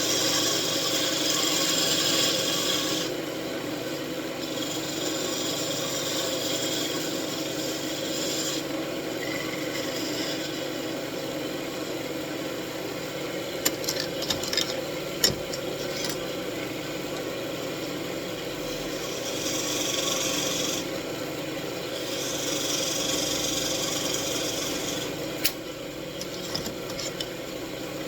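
Wood lathe running with a steady hum while a wooden wand spins on it, broken by several drawn-out rasping hisses of a tool or abrasive working the spinning wood. A few sharp clicks come in the middle and one more near the end.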